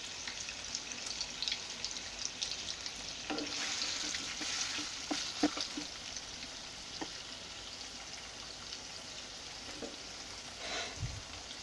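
Paneer cubes frying in hot oil in a nonstick kadai, with a steady sizzle. A few light knocks come around the middle as a wooden spatula turns the cubes against the pan.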